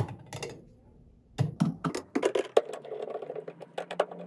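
Steel junction box cover clicking and knocking as it is set in place, then a small power screwdriver running steadily for the last couple of seconds as it drives a lid screw, with light clicks of the screw and metal.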